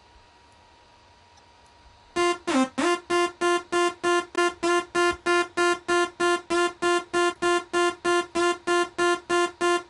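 A synthesizer pattern playing back from music software: one bright note repeated rapidly, about three times a second, after a couple of seconds of near quiet. A quick downward pitch sweep opens the pattern and comes again just at the end as the loop restarts.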